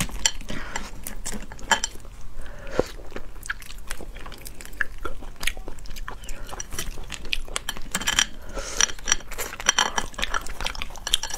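Close-up mouth and hand sounds of eating boiled crayfish: shells cracking and crackling as they are pulled apart by hand, mixed with chewing and wet mouth clicks. The crackling comes thickest about eight to ten seconds in.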